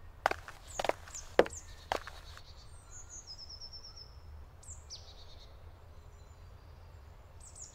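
Small songbirds singing in woodland: high chirps that slide down, and short trills. Four sharp clicks come in the first two seconds, over a low steady rumble.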